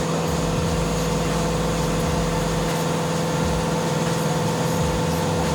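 Steady mechanical hum of a motor running at constant speed, holding one low tone with a few higher tones above it and no change in pitch.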